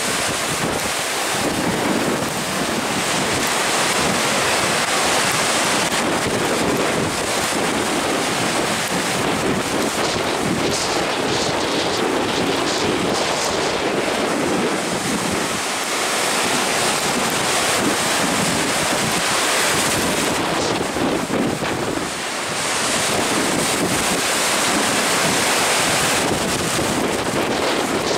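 Heavy storm surf breaking and washing up the beach in a nor'easter, with strong wind buffeting the microphone; a loud, continuous rush.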